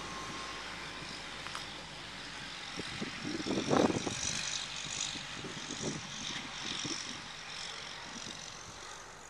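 Diesel engine of a loaded semi dump truck pulling away through a muddy field, a steady drone that fades as the truck moves off, with a few short, louder rushes of noise around the middle.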